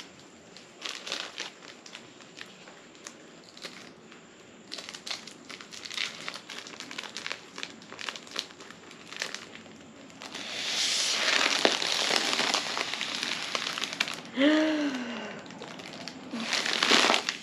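Foil letter balloon crinkling and rustling as it is handled and a straw is worked into its valve. About ten seconds in, a long breath is blown through the straw into the balloon for several seconds, with the foil rustling, and a second shorter blow comes near the end.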